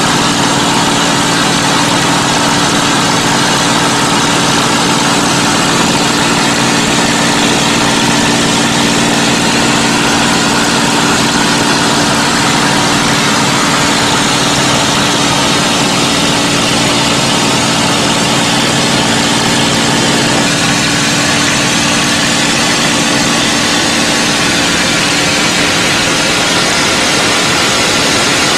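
P-51 Mustang's Merlin V-12 engine running steadily in flight, heard from inside the cockpit with loud rushing airflow over it. About two-thirds of the way through, the engine's low steady note weakens and changes.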